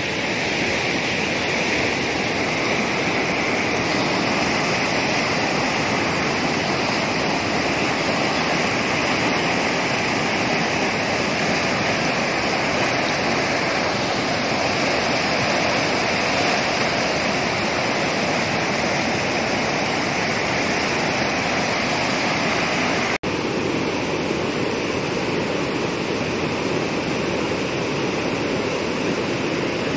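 Fast, turbulent floodwater rushing over a concrete weir and through its openings: a steady, loud rush of white water. It briefly drops out about three-quarters of the way through.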